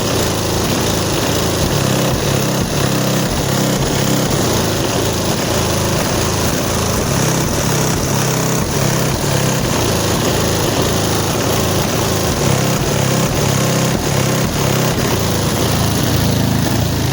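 Four JVF Customz 4.0 15-inch subwoofers in ported boxes tuned to 32 Hz playing bass at very high volume. Loud bass notes change every second or so, with a buzzing haze of distortion over the whole range.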